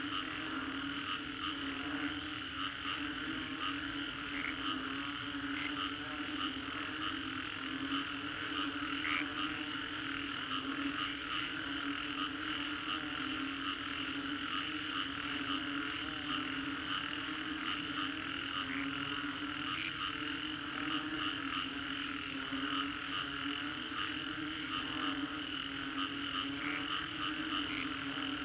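Chorus of many frogs calling together after a storm: a steady low drone of croaks under a dense, higher trilling, with now and then a single sharper call standing out.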